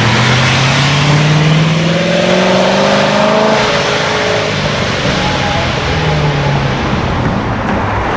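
A sports car engine accelerating hard, its pitch rising steadily for about three and a half seconds, then dropping to a lower, steadier note, over traffic noise.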